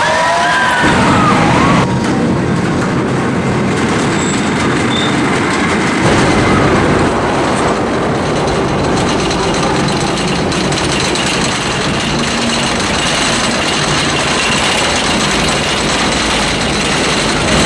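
Wooden roller coaster train running along its track: a loud, steady rushing rumble that shifts abruptly about two and six seconds in.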